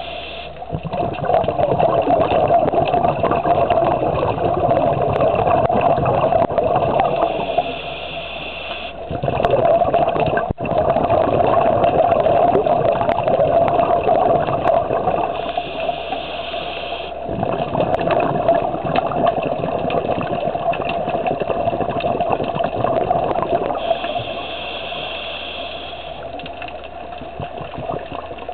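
Scuba regulator breathing heard underwater: long bubbling exhalations, broken about every eight seconds by a short hissing inhalation.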